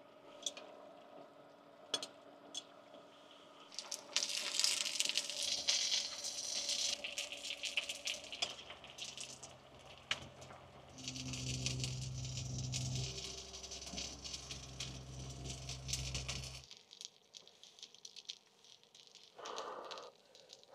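Food cooking: a pot of ramyeon boiling on an induction cooker and dumplings sizzling on an electric grill pan, with light clicks of metal tongs. A low steady hum runs through the middle and stops abruptly about three-quarters of the way through.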